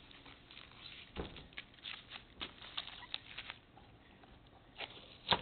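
Blue masking tape being peeled off a sealed lane seam, giving a run of irregular crackles and ticks, then a sharp snap near the end.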